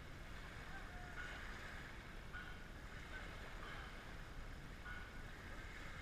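Steady low wind rumble on the microphone, with a few faint short high tones now and then.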